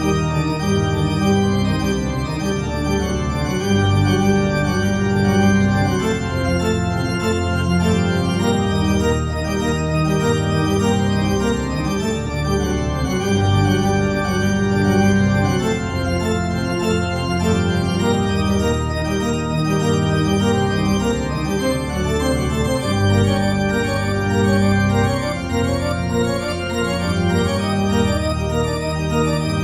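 Organ music accompanying a silent film, playing sustained chords that change every second or two.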